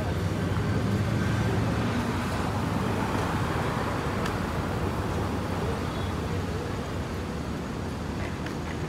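Steady road traffic noise from cars on the street, a low rumble with a hiss of tyres that swells a little in the first few seconds.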